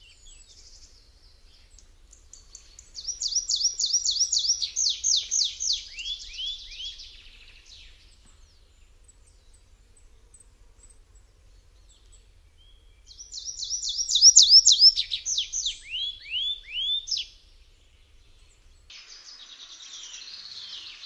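A songbird singing two long phrases. Each phrase is a rapid run of high, down-slurred notes that slows into a few lower falling notes at its end. A faint high hiss starts near the end.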